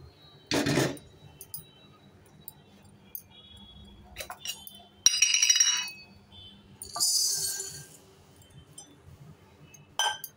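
Steel kitchen utensils clinking and clattering in a few separate knocks: a thud about half a second in, a ringing metal clink about five seconds in, a short high rattle soon after, and a small click near the end.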